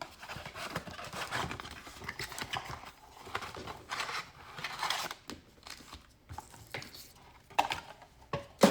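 Hands opening and handling a blaster box of trading cards and its packaging: irregular rustling, scraping and crinkling, with a sharp click near the end.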